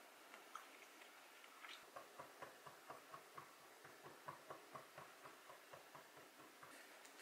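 Chef's knife chopping hard-boiled egg on a wooden cutting board: a couple of soft taps, then from about two seconds in a steady run of quick knocks, about four a second.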